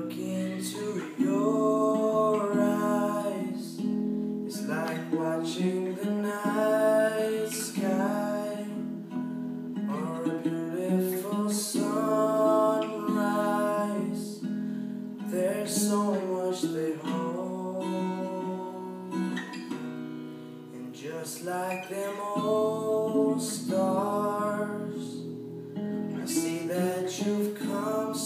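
A young male voice singing a slow ballad in long phrases over strummed acoustic guitar, the voice coming in about a second in.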